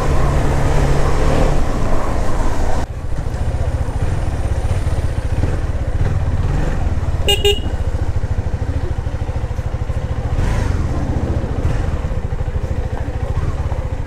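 KTM Duke 390's single-cylinder engine running under way while the bike is ridden. A rushing noise over it drops away sharply about three seconds in, and a vehicle horn toots once briefly about seven seconds in.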